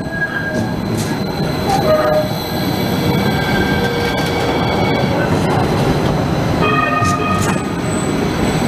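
NJ Transit light rail train passing close by: a steady rumble of steel wheels on the rails, with high thin wheel squeal that comes and goes, strongest near the end, and a few sharp clicks.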